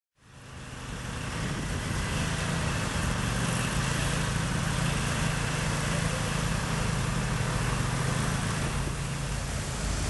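Heavy prime mover's diesel engine running steadily as it slowly tows a long multi-axle trailer with a heavy load, over a steady rush of outdoor noise. The sound fades in over the first second or so.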